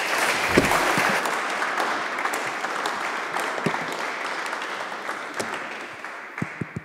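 Audience applauding, the clapping slowly dying away, with a few sharp knocks near the end.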